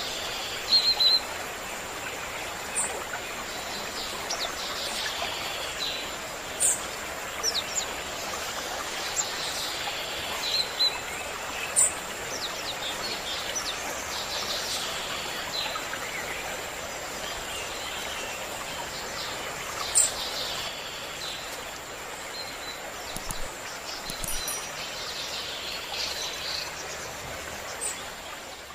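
Several birds chirping and calling, with a few sharp, loud calls, over a steady rushing background of flowing water and a thin steady high tone. The whole soundscape starts to fade out near the end.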